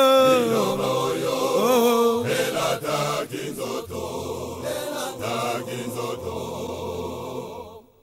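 Men's choir singing a gospel song, holding a chord at the start and then going on more quietly in low voices. The singing fades out just before the end.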